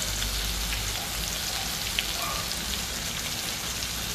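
Chicken sizzling in hot oil in a stainless steel frying pan as tomato sauce is squeezed over it: a steady hiss with scattered crackles and one sharper pop about two seconds in.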